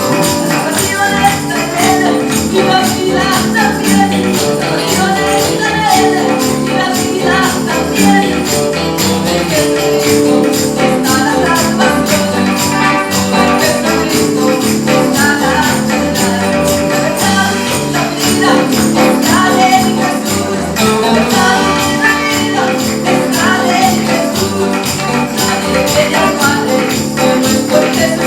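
Instrumental passage of a Spanish-language gospel song played by a band, with a steady beat and a shaking tambourine.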